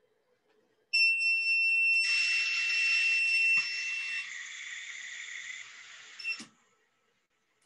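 A loud, steady, high-pitched electronic tone with a rushing hiss from the quadruped robot dog as it switches into SLAM mode. The tone starts about a second in and stops about four seconds in. The hiss carries on, fading, and cuts off about six and a half seconds in.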